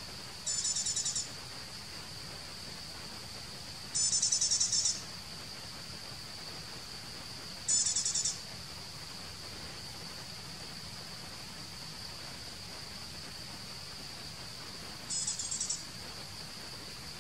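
Insects droning in a steady high hum, with four short, louder, buzzy high-pitched trills, the first about half a second in and the last near the end.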